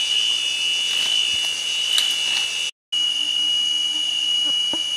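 Cicadas droning in a steady, high-pitched whine that drops out for a split second about three seconds in.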